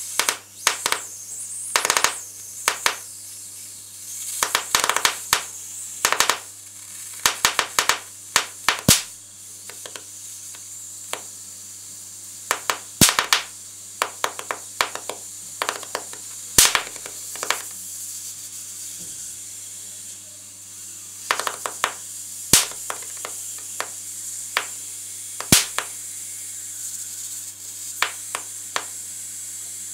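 High-voltage sparks from a TV flyback transformer with tripler, at about 20 kV, arcing across a pencil-graphite patch on paper. Irregular sharp snaps and crackles come singly and in quick clusters over a steady high whine.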